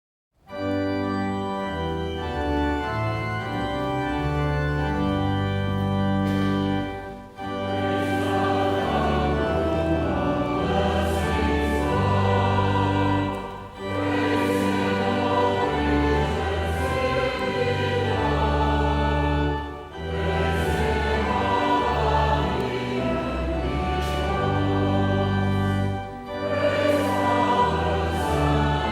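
A choir singing a hymn with organ accompaniment, in sustained chords over a deep bass line. The phrases are broken by short pauses about every six seconds.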